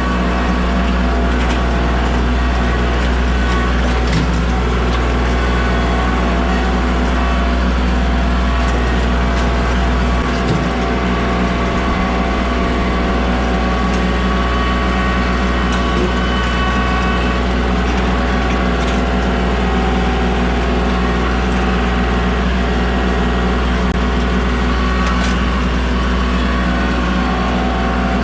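Heavy engine running steadily at a constant speed, with a few faint knocks.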